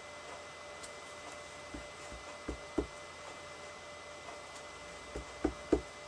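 Rubber stamp on a clear acrylic block set down on paper, giving soft knocks. There are a couple around the middle and three in quick succession near the end, the last the loudest, over a faint steady hum.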